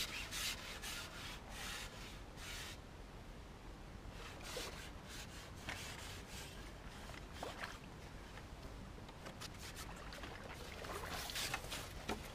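Irregular rubbing and scraping of a carbon fishing pole being handled and shipped back by hand, with rustling from the angler's movements.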